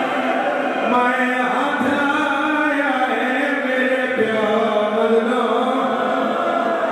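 A man's voice chanting a zakiri recitation in a sung, melodic style through a microphone, with long held notes that slide up and down in pitch.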